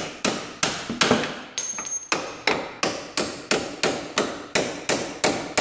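Hammer striking the end of a splined lower strut bolt, metal on metal, driving it out of the steering knuckle. The strikes come in a steady rhythm of about three a second, with a brief metallic ring after one blow about two seconds in.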